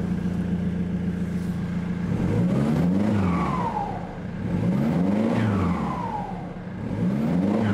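Ford 2.2 Duratorq TDCi four-cylinder turbodiesel running with its exhaust system off: it idles steadily for about two seconds, then is revved three times, each rev climbing and dropping back. A whine falls away after each rev.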